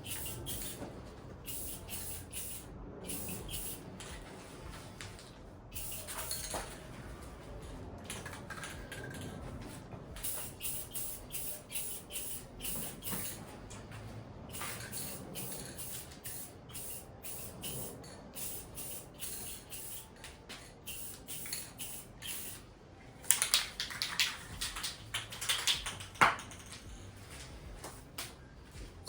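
Spray can of clear coat hissing in many short bursts as it is sprayed onto a bike frame, with a louder run of bursts about three-quarters of the way through.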